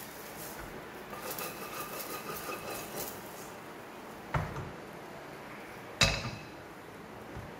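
Wooden spatula scraping thick cooked rice-rava dough out of a stainless steel frying pan into a steel plate, with rattling and faint metallic ringing. A sharp knock comes about four and a half seconds in, then a loud ringing clank at about six seconds as the steel pan is set back down on the gas stove's iron grate.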